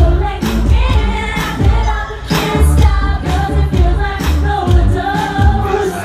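Live Eurodance pop music played loud through a PA: a female singer's amplified vocal over a heavy, pounding electronic dance beat.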